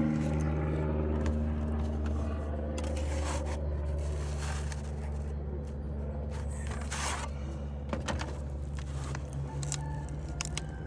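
Tools scraping and clicking against wood shakes as they are worked loose, in scattered short bouts, over a steady low engine-like hum.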